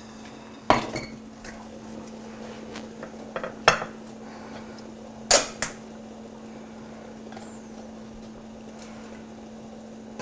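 Metal tongs and a stainless steel pot clinking and knocking as soft cooked cabbage is lifted out into a glass baking dish. There are three louder clinks and a few lighter taps in the first six seconds, over a steady low hum.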